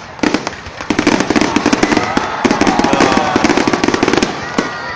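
Fireworks display: rapid bangs and crackling bursts going off in quick succession, thickest through the middle and thinning out near the end.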